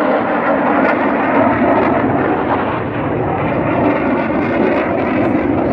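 Jet engines of the Black Eagles' KAI T-50B aerobatic jets flying overhead: a loud, steady rushing rumble.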